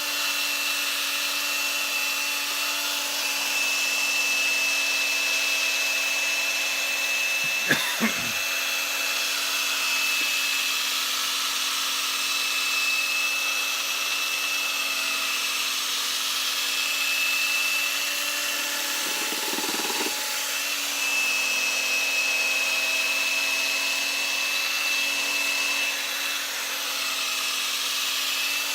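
Electric polishing machine running steadily with a constant motor whine, buffing cutting compound into a vacuum cleaner's plastic casing. There are two sharp knocks about eight seconds in.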